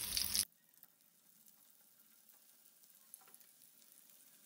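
Rava-coated brinjal slices sizzling in hot oil in a frying pan, cutting off suddenly within the first half second. After that, near silence with a single faint click.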